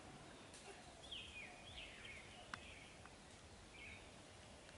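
Near silence: faint outdoor ambience with a few short, falling bird chirps scattered through it and one soft click about halfway.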